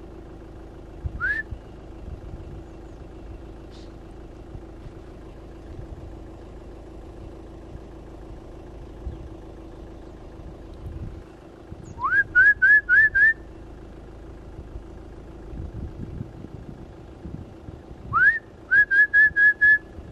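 Short, sharp rising whistles: a single note about a second in, then quick runs of six or seven notes, about five a second, around twelve seconds in and again near the end, over a steady low hum.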